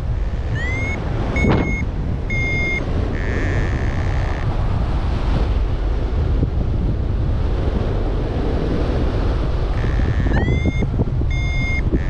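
Wind rushing over the microphone in flight, with a paragliding variometer's electronic beeps: a few short tones, some sliding up in pitch, and one longer tone in the first few seconds, then another run of beeps near the end.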